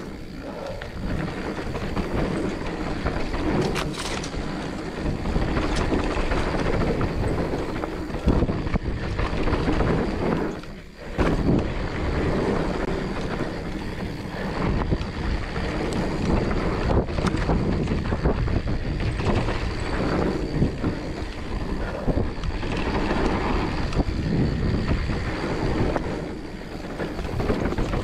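Mountain bike riding fast down a dirt trail: tyres rolling over dirt and leaves, the bike rattling and clattering over bumps, and wind buffeting the microphone. The noise briefly drops away about eleven seconds in.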